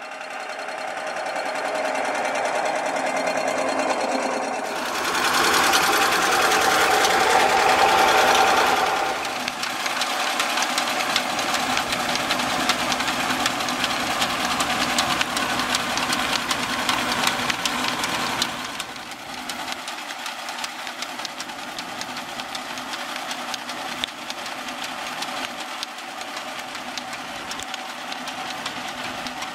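Belt-driven lineshaft machinery running, powered by a 1930s Le Roi 3 HP power unit: flat belts turn pulleys and an antique centrifugal water pump, with a fast, steady mechanical clatter. It gets louder for a few seconds about five seconds in, and a little quieter about two-thirds of the way through.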